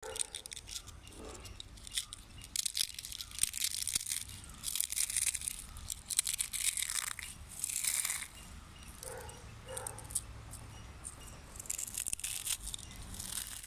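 Crisp deep-fried kokis being broken and crushed by hand, crackling and crunching in irregular bursts as they crumble into flakes.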